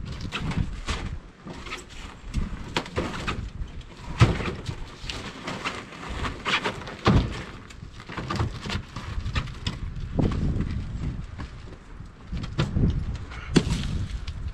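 Irregular wooden knocks and thumps of firewood being handled and loaded, some several seconds apart and some in quick runs.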